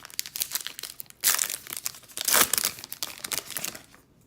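Crinkling and tearing of a foil baseball-card pack wrapper being handled, with two louder bursts of crackle about a second and two seconds in.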